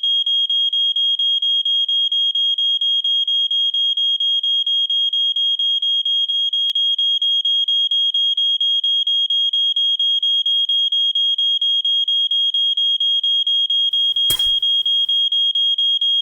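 Electronic alarm sounding continuously in one high pitch, pulsing in rapid, even beeps. There is a short thump about fourteen seconds in.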